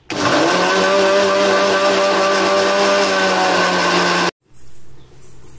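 Prestige mixer grinder blending tender coconut flesh and coconut water into juice: the motor starts, runs loud and steady for about four seconds, then cuts off suddenly, with a short, quieter sound just after.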